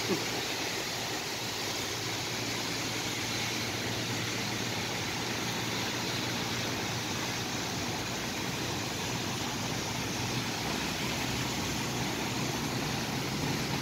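Steady, even wash of wet-street noise, the hiss of rain and tyres on a flooded road, with a faint low hum underneath.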